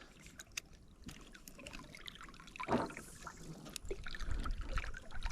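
Light clicks and knocks of fishing gear handled aboard a kayak, with one louder brief sound a little after halfway and a low rumble building near the end.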